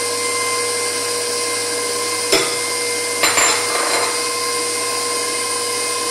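Electric stand mixer running at speed with a steady motor whine as it beats eggs into creamed butter and sugar batter. A sharp clink a little over two seconds in, and a brief rattle about a second later.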